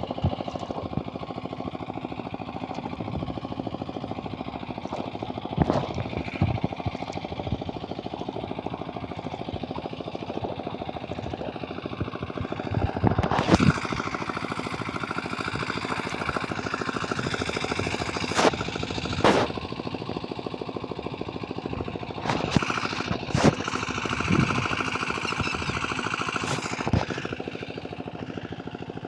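A small engine running steadily with a fast, even chug, with several sharp knocks over it.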